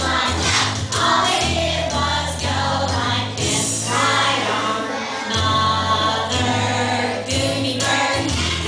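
Music with choral singing over a steady bass line.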